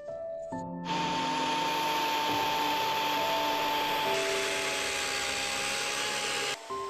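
Electric power tool running with a steady motor whine from about a second in, cutting off sharply near the end, over background music.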